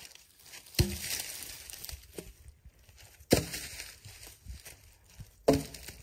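Three sharp wooden knocks, about two and a half seconds apart, as short logs are handled and bump against one another, each followed by a short scrape of bark and dry leaves.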